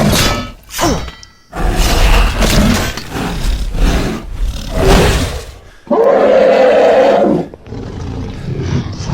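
Dragon roar sound effects: a run of loud roars and growls, with one long, steady roar about six seconds in.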